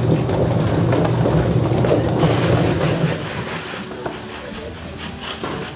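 Water hissing from a hose spray nozzle as plucked chickens are rinsed, sounding like rain, over a steady low machine rumble that drops away about three seconds in.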